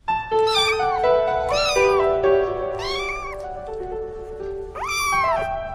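Four cat meows over a simple tune of steady held notes, each meow rising and falling in pitch; the last, near the end, is the longest and highest.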